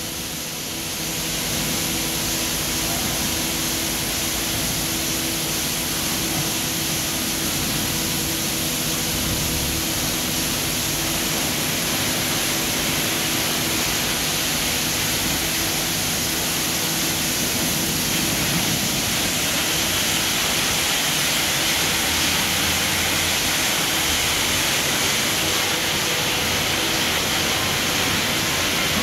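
Automatic car wash running: a steady hiss of spraying water over the hum of the wash machinery, a little brighter from about twenty seconds in.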